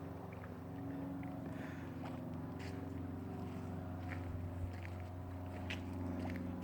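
A boat engine runs at a steady drone, with a few scattered short clicks over it.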